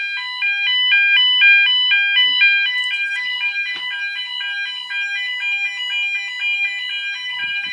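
Several fire alarm sounders, Roshni and KAC units, sounding together on the BS alternating tone, two notes swapping about every quarter second. The alarm was set off by a manual call point.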